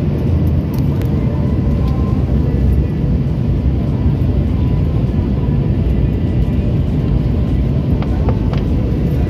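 Steady cabin noise of an Airbus A320-family airliner in cruise, heard inside the cabin: an even, low rumble of engines and rushing air, with a faint steady hum over it.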